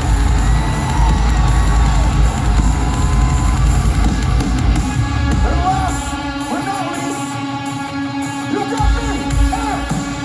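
Heavy rock band playing live in an arena, loud, with singing over the music. The deep bass and drums drop away about six seconds in and return shortly before the end.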